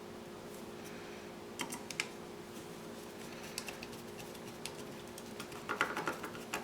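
Small scattered clicks and taps of a screwdriver turning small screws into plastic model-kit parts, with a denser run of louder clicks near the end. A low steady hum lies underneath.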